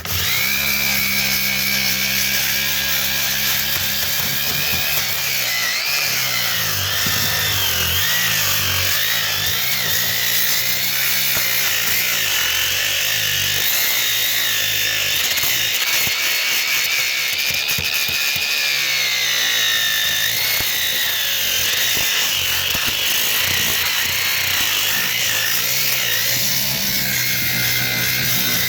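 Power grinder working fibreglass on a boat's floor and stringers, running continuously with a whine that rises and falls as the load on the disc changes.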